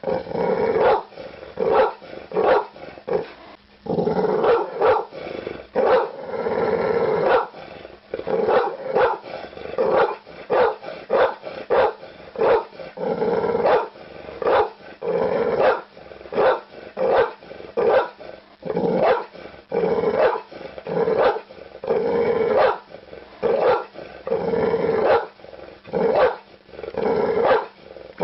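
A dog barking over and over, roughly one bark a second, with a few barks drawn out longer.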